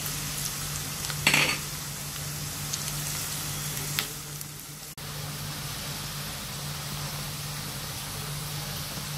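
Sliced onion and chopped garlic sizzling in hot oil in a nonstick frying pan, stirred with a silicone spoon; one louder scrape of the spoon about a second in. The onions and garlic are frying toward brown for a tempering (tadka).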